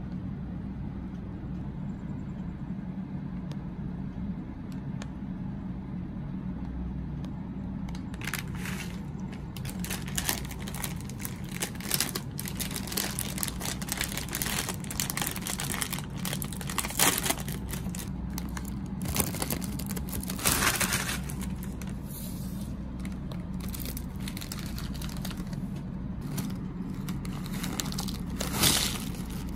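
Plastic potato chip bag crinkling and crackling as it is handled and pulled open, then chips tumbling out onto a paper plate near the end, all over a steady low hum.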